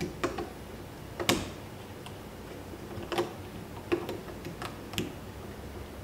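Irregular small clicks and taps of plastic, about eight in all, the loudest about a second in, as a battery and its wires are pressed into the battery compartment of a Schlage keypad door lock.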